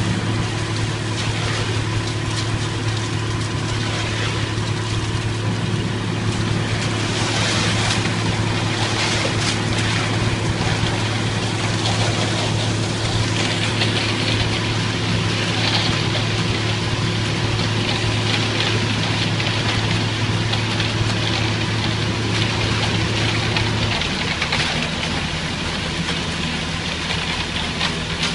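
Ready-mix concrete truck's diesel engine running steadily, with a gritty hiss of wet concrete sliding off the chute and being raked. About 24 seconds in, the engine note drops lower.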